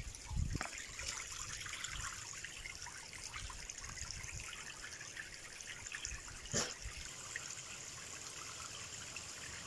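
Faint, steady trickle of spring water running from a pipe into a stone basin, with one brief soft noise about six and a half seconds in.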